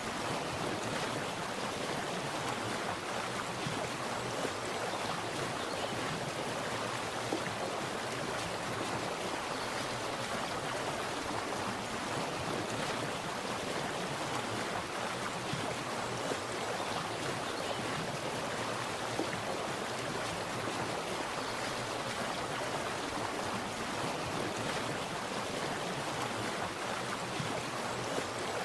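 Water splashing and running steadily, an even rushing sound with small splashes here and there.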